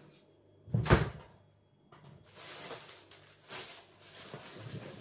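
A single sharp knock about a second in, like something hard being set down or shut. It is followed by a couple of seconds of noisy handling sounds with a smaller knock partway through.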